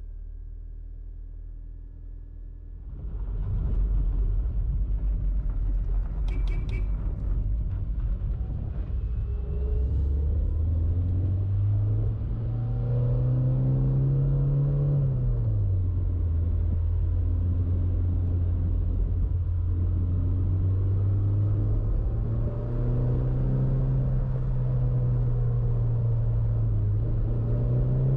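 A 1992 Toyota MR2's four-cylinder engine, still cold, heard from inside the cabin. It idles for the first few seconds, then the car pulls away under load, with the engine note climbing and dropping at a gear change partway through before climbing again. A few sharp clicks come about six seconds in.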